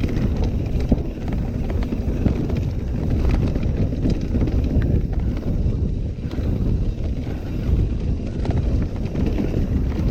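Mountain bike riding downhill over rough ground: wind buffeting the microphone and steady tyre rumble, with scattered clicks and knocks from the bike.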